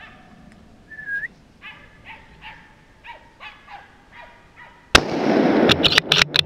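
Hunting dogs barking again and again, with a short rising whistle about a second in. About five seconds in comes a sudden loud gunshot crack, followed by a second and a half of loud rushing noise broken by several sharp knocks.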